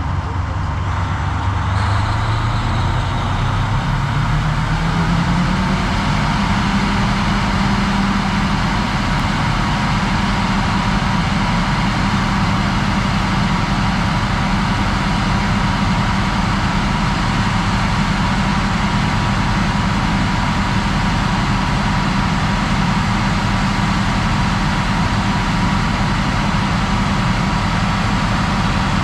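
The 1200 horsepower Caterpillar diesel engine of a grinder revs up over the first five or six seconds, then runs loud and steady at high speed.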